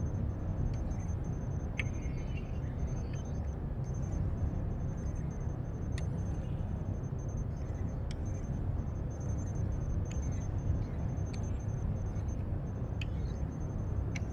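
Low steady machine hum of a robotics lab's ambience, with a faint high whine that comes and goes and a handful of small mechanical clicks.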